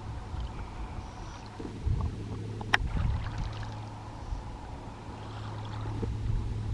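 Low steady hum with water sloshing, a couple of dull low thuds, and one sharp click a little under halfway through.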